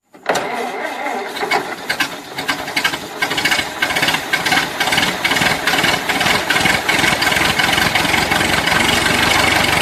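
A loud engine running.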